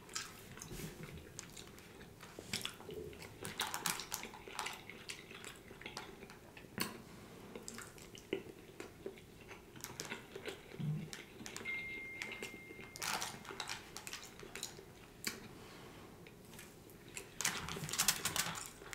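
Close-miked chewing and mouth sounds of a man eating: scattered soft wet clicks and smacks, busier near the end.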